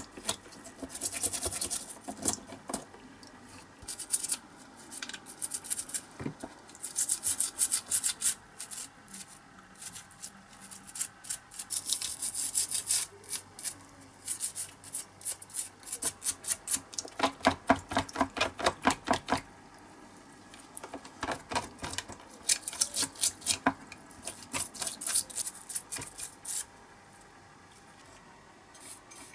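Toothbrush scrubbing a small diecast metal toy part: rapid back-and-forth strokes in several runs, with short pauses between.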